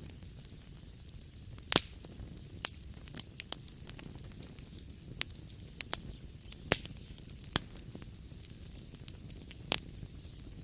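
Wood fire burning in a fireplace: a low steady rumble with irregular sharp crackles and pops, a few louder snaps scattered through.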